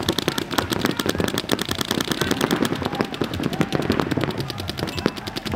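Rapid paintball marker fire: a dense, continuous stream of sharp shots from several markers at once, with no pause.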